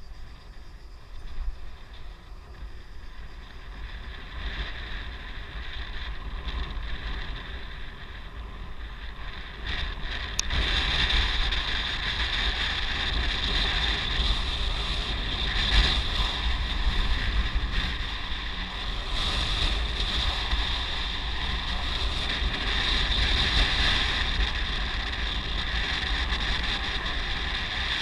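Wind rushing over the microphone of a moving vehicle on an open road, with a low rumble, growing louder about ten seconds in.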